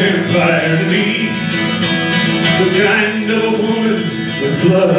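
Acoustic guitar played in a solo folk song, steady and continuous.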